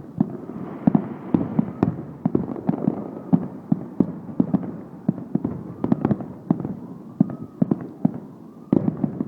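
Aerial fireworks display: a dense, irregular barrage of bangs and crackles, several per second, with a few faint whistles curving up and down in pitch.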